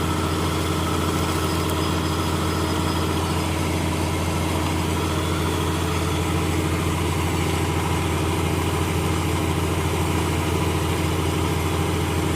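Sullair 375 cfm portable diesel air compressor running steadily at a constant engine speed, a deep even drone with no change in pitch.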